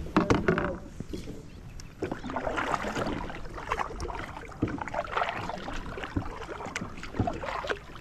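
Kayak being paddled: water splashing off the paddle blades in uneven strokes, with a few sharp knocks of gear being handled in the first second.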